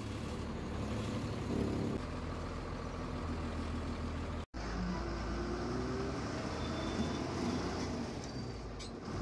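Diesel engine of an MSRTC ordinary bus running steadily as the bus pulls out and drives, heard from the front of the cabin beside the engine cover. The sound cuts out for an instant about four and a half seconds in.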